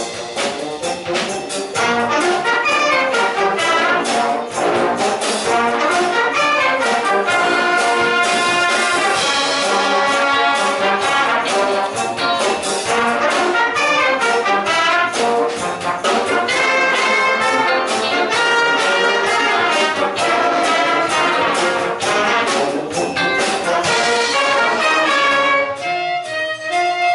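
Concert wind band playing live: brass and woodwinds over percussion keeping a steady beat. The music thins out briefly near the end.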